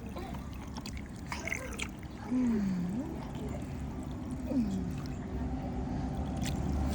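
Two short gliding voice sounds: one dips and rises a little over two seconds in, another falls about four and a half seconds in. A few soft clicks and a steady low hum lie underneath.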